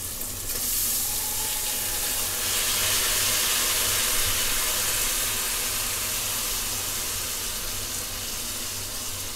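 Washed, soaked basmati rice sizzling in hot oil with sautéed onions in a pressure cooker: a steady hiss that grows about a second in and then slowly dies down.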